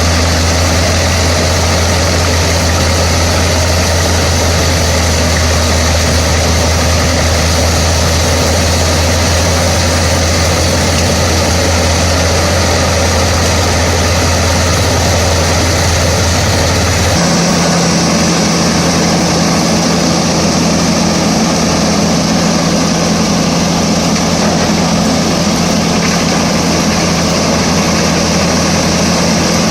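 IVECO C10ENTX six-cylinder diesel engine of a Pezzolato PTH 900 M drum wood chipper, running steadily. The deep hum changes suddenly to a higher steady hum a little over halfway through.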